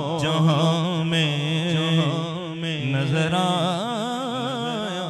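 A man singing a naat solo into a microphone, drawing out long melismatic phrases with a wavering, ornamented pitch; the voice slowly gets softer toward the end.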